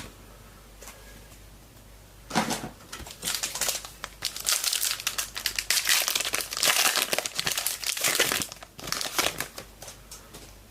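A sealed trading-card pack's wrapper being torn open and crinkled by hand: a couple of seconds of quiet, then about seven seconds of continuous crackling and crinkling that dies away near the end.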